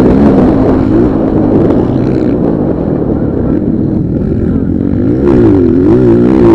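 Motocross motorcycle engines revving up and down with the throttle, dipping a little in the middle and rising again near the end.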